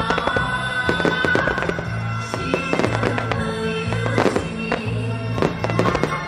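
Fireworks going off in many quick bangs and crackles, layered over loud music with a repeating bass beat.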